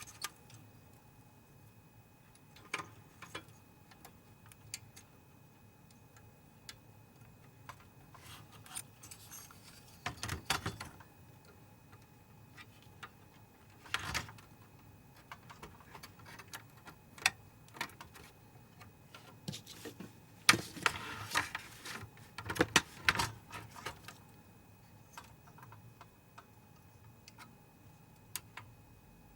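Scattered sharp clicks and short clusters of light rattling from small parts being handled while working on a projector's internals, over a faint steady hum.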